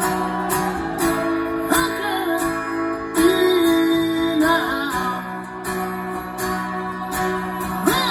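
Solo acoustic guitar strummed live in a steady rhythm, about two strums a second. A held, wavering melody note sounds over it a few seconds in.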